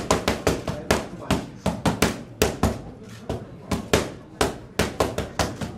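Boxing gloves striking focus mitts in fast combinations: sharp slaps in quick runs of several punches, about three to four a second, with brief pauses between runs.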